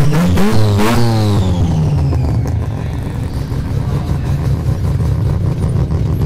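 Car engine revving up and dropping back about a second in, then running with a steady low drone as the cars drive off.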